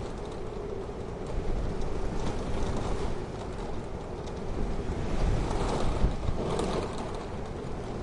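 Wind blowing in steady gusts, swelling louder about five to six seconds in.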